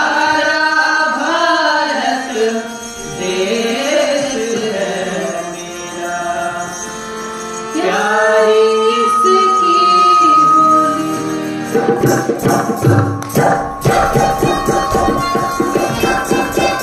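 Braj Holi folk song: a voice sings a melodic line over accompaniment, holding one long note near the middle. About twelve seconds in, the singing gives way to fast, rhythmic folk percussion.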